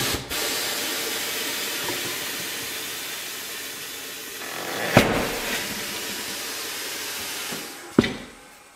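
Pneumatic bead breaker of a tyre-changing machine hissing steadily with compressed air as its blade presses a tyre bead off an alloy rim, fading near the end. There is a sharp knock about five seconds in and another near the end.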